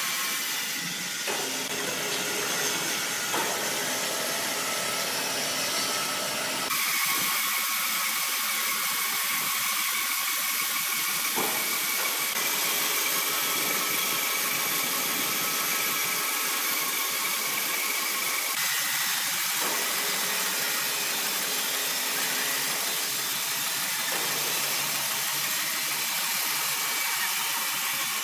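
Horizontal band sawmill running and cutting through a large green ironwood log: a steady hiss of the blade in the wood with a thin high whine. The sound changes abruptly about a second in and again about seven seconds in.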